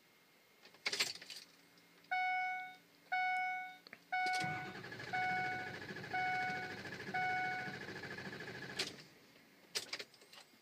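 A Ford F-250's dashboard warning chime beeps about once a second. From about four seconds in, the starter cranks the warm 6.0 diesel for about four and a half seconds and stops without the engine catching: the hot no-start fault.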